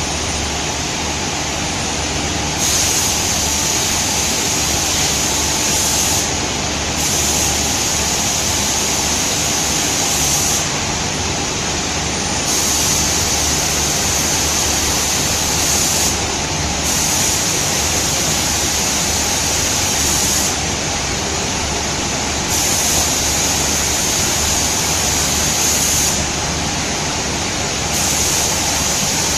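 Automatic CNC spray painting machine's spray guns hissing in regular on-off cycles, about three and a half seconds of spraying then a short pause, six times, over a steady background rush of air and a low hum.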